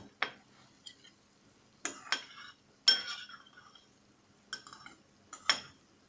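A metal utensil clinking against dishes and the pan: about half a dozen separate sharp clinks, some with a brief ring.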